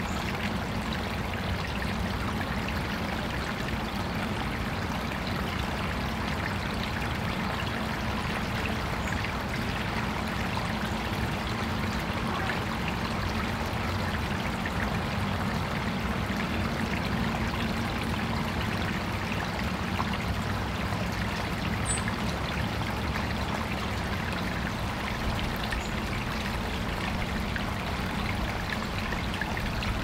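Water of an artificial backyard stream running steadily, pouring and trickling, with a steady low rumble underneath.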